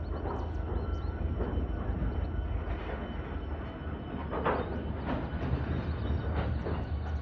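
Freight train rolling slowly under braking as it comes to a stop: a steady low rumble with several short, sharp noises from the cars over it, the loudest about four and a half seconds in.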